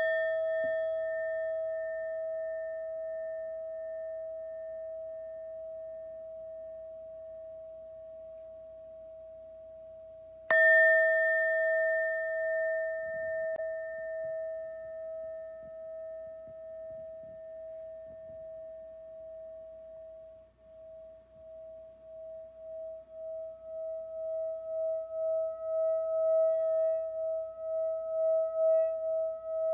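Singing bowl struck twice, about ten and a half seconds apart, each strike ringing on in one long, slowly fading tone. In the second half the tone swells again with a fast wavering throb, the rim being rubbed.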